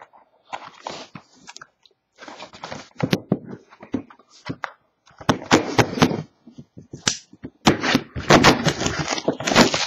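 Plastic shrink wrap being torn and crinkled off a factory-sealed trading-card box. It is a run of sharp crackles and rustles, sparse at first and louder and busier over the last few seconds.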